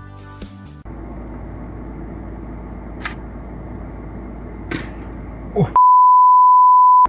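A loud, steady single-pitched beep of the censor-bleep kind, lasting over a second near the end. It comes after several seconds of muffled noise with a couple of faint clicks, and background music ends in the first second.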